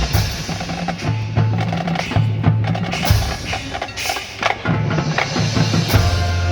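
Marching band percussion passage: many quick drum and wood-block strikes over sustained low bass notes, with the brass mostly dropped out.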